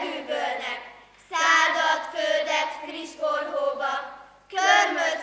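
Young girls' voices chanting together in unison, in pitched, sing-song phrases: one fades out at the start, a new one begins about a second in, and another about four and a half seconds in.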